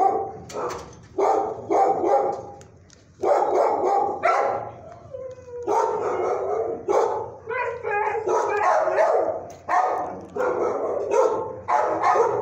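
Dogs barking over and over in a shelter kennel, about one or two barks a second, echoing off the hard walls.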